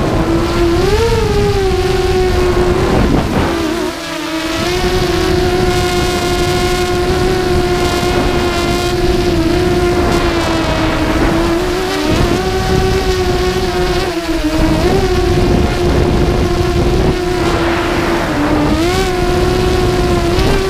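A 5-inch FPV racing quadcopter's Multistar Elite brushless motors and propellers whine at a steady pitch, with air rushing over the on-board microphone. The pitch swoops up briefly with throttle punches about a second in and again near the end, and drops for a moment around 4 and 14 seconds where the throttle is cut.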